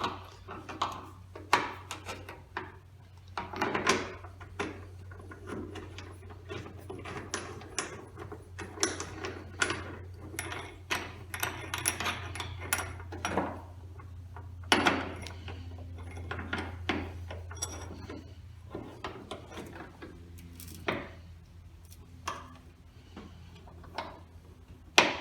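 Irregular clicks, knocks and clatter of metal tailgate hardware and hand tools being handled while a greased part is refitted, over a steady low hum.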